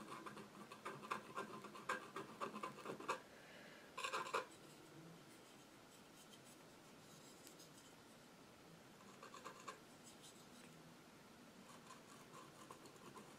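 Faint scratching of a metal palette knife scraping acrylic paint onto a canvas panel, in a run of short strokes, then a brief stroke about four seconds in and a few fainter ones later.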